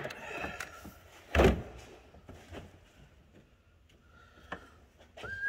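Handling noises from tools and parts during engine reassembly: one loud clunk about a second and a half in, a few lighter clicks and taps around it, and a short squeak near the end.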